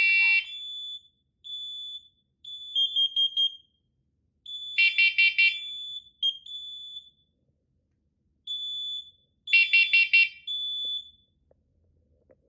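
Interconnected smoke and carbon monoxide alarms sounding their piezo horns: two loud groups of four quick high-pitched beeps about five seconds apart, the temporal-four pattern of a carbon monoxide alarm. Quieter, longer high beeps come in between.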